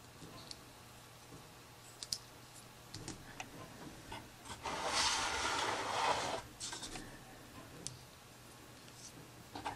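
Small plastic toy parts being handled and fitted together, making scattered light clicks. A louder scraping noise lasts nearly two seconds about halfway through.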